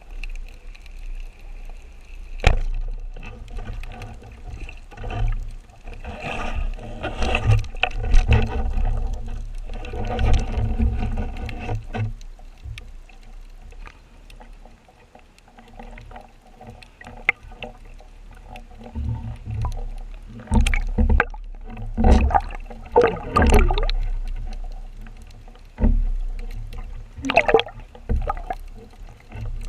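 Water sloshing and bubbling around a diving camera, coming in irregular surges with a few sharp knocks.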